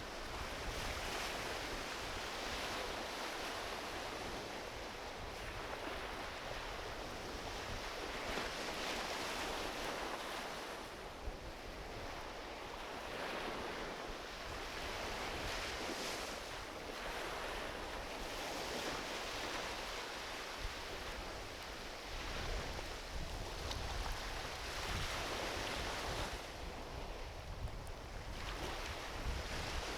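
Small ocean waves breaking and washing up a beach, the hiss swelling and easing every few seconds, with a driftwood campfire crackling and giving an occasional small pop.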